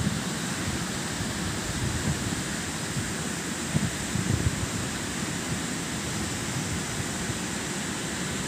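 Steady wash of surf breaking on the beach, with wind buffeting the microphone in gusts, strongest about four seconds in.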